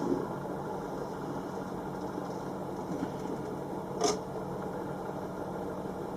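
Steady low mechanical hum, with a single sharp click about four seconds in.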